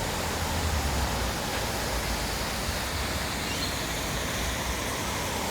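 Falling water from a man-made waterfall, a steady, even rushing hiss.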